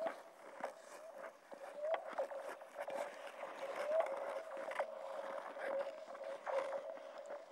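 Thin, clear lake ice singing under skaters: a steady ringing hum with short rising 'pew'-like chirps every second or two, over the scrape and click of skate blades. Ice this vocal is a sign that it is thin.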